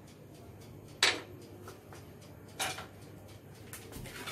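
Kitchenware being handled on a countertop: two sharp clatters about a second and a half apart, the first the loudest, and a few lighter taps. A soft rustling starts near the end as hands take hold of the mixing bowl.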